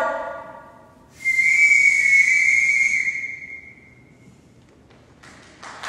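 A conductor's whistle blown in one long steady blast of about two and a half seconds, starting about a second in, signalling the train's departure. A drawn-out voice fades out just before it, and applause begins near the end.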